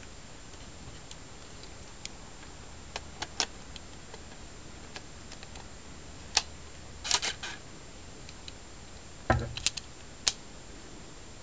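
Plastic clicks from handling a Minolta Maxxum 400si film SLR and its 35-80mm zoom lens as the lens is turned by hand: scattered sharp clicks, a short rattle about seven seconds in, and a dull thump followed by a few clicks about nine seconds in.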